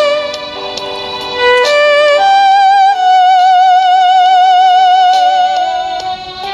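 Roland Aerophone Pro AE-30 electronic wind instrument playing a slow melody with vibrato, holding one long note through the middle. It plays over an accompaniment with chords and regular drum hits.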